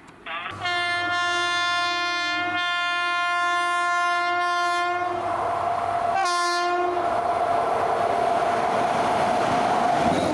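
Electric locomotive horn, a WAP-7, sounding one long blast of about four and a half seconds and then a short second blast, followed by the steady rising noise of the locomotive and coaches running past at speed.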